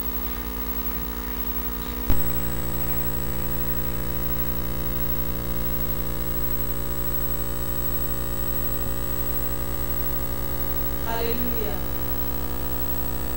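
Steady electrical mains hum from the sound system, a buzz with many evenly spaced overtones. A sharp click comes about two seconds in, after which the hum steps up louder and stays level.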